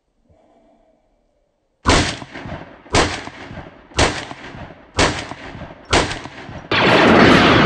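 AK-pattern rifle fired five times in single aimed shots about a second apart, each shot trailing off with echo. Near the end a loud continuous noise cuts in abruptly.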